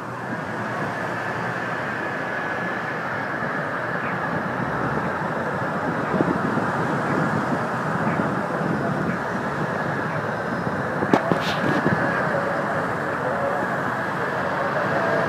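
Steady road and traffic noise heard from inside a moving car, with a couple of sharp clicks about eleven seconds in.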